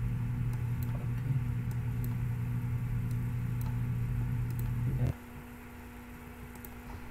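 Steady low electrical hum from the recording setup, with a few faint mouse clicks. The hum cuts off abruptly about five seconds in, leaving quieter room tone.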